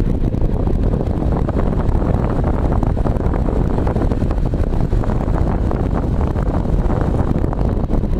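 Vintage Rotron Gold Seal Muffin Fan, an AC axial cooling fan, running at full speed after spinning up: a loud, steady rush of air.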